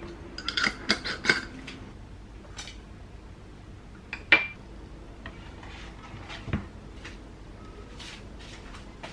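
Glass jar and ceramic dishes clinking as they are handled and set down on a kitchen counter. A quick cluster of ringing clinks comes in the first second and a half, one sharp clink around four seconds in, and a duller knock about six and a half seconds in.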